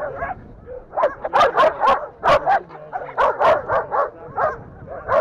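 Several dogs barking and yelping over one another, with a rapid run of loud, sharp barks starting about a second in.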